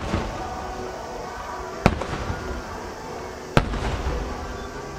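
Aerial firework shells of a starmine display bursting: two sharp booms, about two seconds in and about three and a half seconds in, each followed by crackling. A low rumble rolls on after the second boom.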